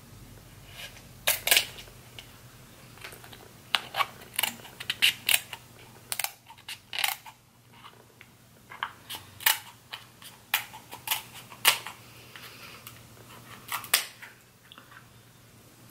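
Crab leg shells being cracked and snapped apart by hand, giving a run of sharp, irregular cracks and clicks in clusters, with short quiet gaps.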